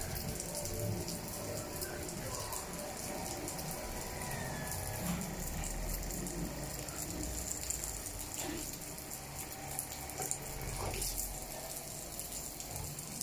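Water spraying from a garden hose onto a concrete floor, a steady hiss and splatter.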